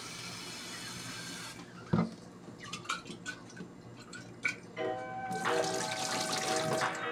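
Water running from a kitchen sink tap into a bottle, then a sharp knock about two seconds in and a few small clicks as the bottle is handled. Near the end water is poured out of the bottle into the sink. Background music plays throughout.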